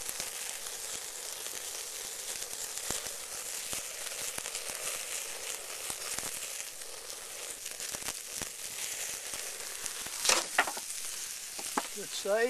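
A wild hog ham sizzles on the grate over a flaring charcoal fire: a steady hiss of fat cooking in the flames, with scattered crackles and a couple of louder ones about ten seconds in.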